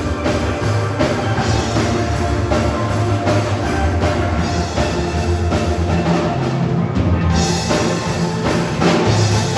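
Background music with a steady drum beat and strong bass.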